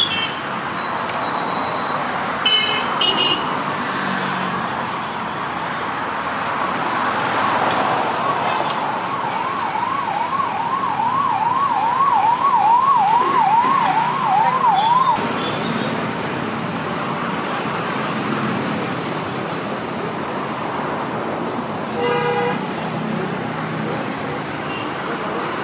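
Street traffic noise with a siren yelping, a fast repeating rising wail about twice a second, for several seconds midway before it cuts off suddenly. There are short vehicle horn toots near the start and again near the end.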